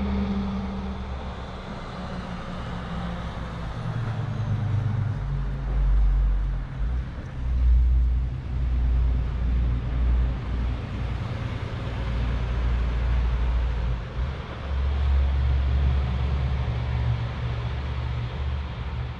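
Road traffic on the road below: a loud, steady rumble and hiss that swells and eases every few seconds.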